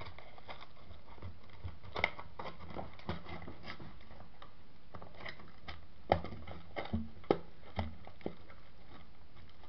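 Handling noises: scattered light knocks and clicks as a cardboard candy box is moved about in a metal pan, with a cluster of sharper knocks between about six and eight seconds in, over a steady hiss.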